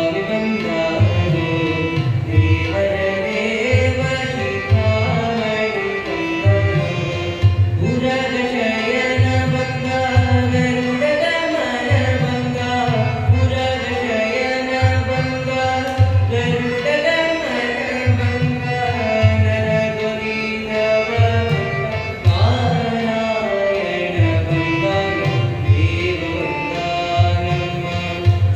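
Devotional song in a Carnatic style: a young male voice singing to a Yamaha electronic keyboard, over a steady tabla beat of about two strokes a second.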